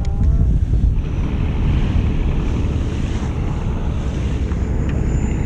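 Wind blowing across the microphone over the wash of waves on open sea around a drifting fishing boat: a steady low rumble.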